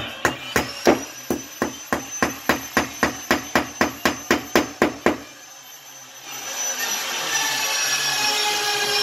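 Hammer driving a nail to fasten a PEX pipe clip to a wooden stud, in a quick, even run of about eighteen blows, roughly three a second, stopping about five seconds in. After a short pause a steady high whine with several tones rises in near the end.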